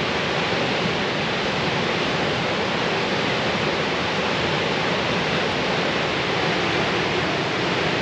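A large waterfall, the steady even rush of falling water at a constant level.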